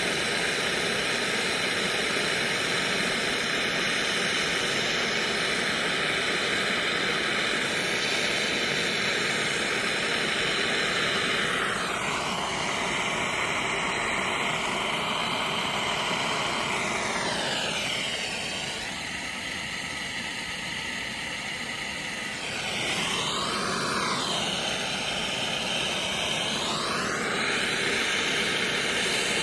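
Handheld gas soldering torch burning with a steady hiss while heating a fluxed tailpiece joint. In the second half the hiss's tone sweeps up and down several times, and it dips slightly in loudness for a few seconds.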